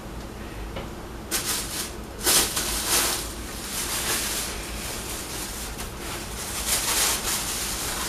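Rustling and handling noise from a cloth bag and clothes being packed, in irregular bursts starting about a second in.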